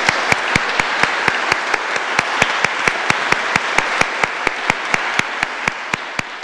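Audience applauding, with sharp, evenly spaced claps standing out over it at about four a second.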